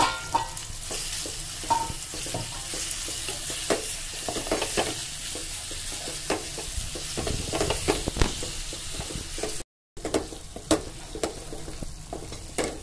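Sliced onions sizzling as they fry in oil in an aluminium pot, stirred with a wooden spoon that scrapes and knocks against the pot in many short clicks. The sound cuts out for a moment about ten seconds in.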